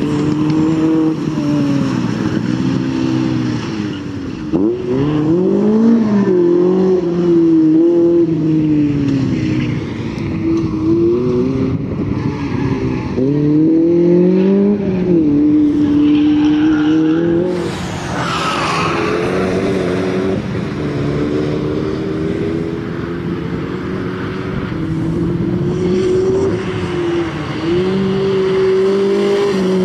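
Lotus Elise's swapped-in Honda K20A inline-four engine revving hard. Its pitch climbs and falls again and again as the car accelerates and lifts through the corners. A burst of hiss comes in about eighteen seconds in.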